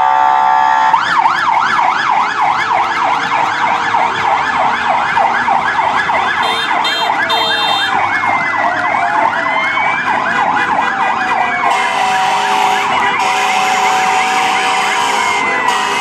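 Several fire-truck sirens sounding at once: a steady tone at the start gives way about a second in to a fast yelp, and slower rising and falling wails join it in the second half.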